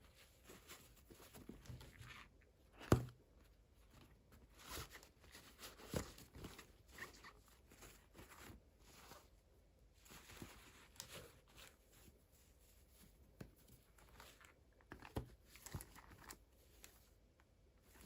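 Quiet hand-handling of toy packaging during an unboxing: scattered light rustling and crinkling with a few sharp taps, the loudest about three seconds in and another about six seconds in.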